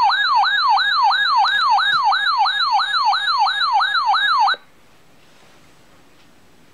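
Electronic siren alarm from a weather alert radio: a loud rising wail that repeats about three times a second, then cuts off suddenly after about four and a half seconds. Faint hiss with a few light ticks follows.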